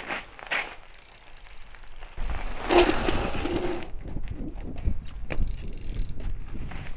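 Mountain bike on icy asphalt: a short tyre skid scrape at the start, then a low rumble begins suddenly about two seconds in. About three seconds in comes a loud scrape, lasting about a second, as the bike slides on its side across the ice. Tyres then roll on with a low rumble and scattered clicks.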